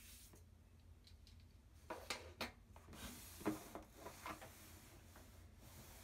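2010 aluminium MacBook Pro pushed and slid across a desk, a few short rubs and soft knocks between about two and four and a half seconds in, the loudest knock about three and a half seconds in.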